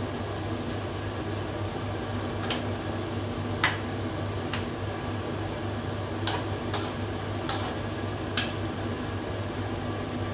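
A spoon knocking and scraping against a frying pan every second or so as beef pieces are stirred, over a steady low hum.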